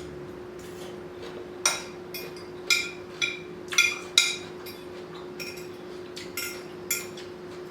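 A metal fork clinking against a dish about ten times at irregular intervals, each a short, sharp tap with a brief ring, as salad is picked up off it.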